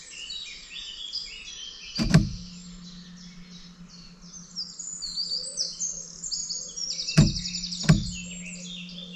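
Woodland birds chirping and singing in a dense chorus, with a fast trill near the end. Three sharp knocks, one about two seconds in and two near the end a little under a second apart, each followed by a low steady hum.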